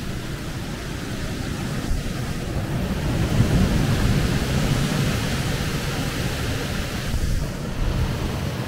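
Storm noise: a steady rush of wind and rain with a deep low rumble that swells about three seconds in and eases off again.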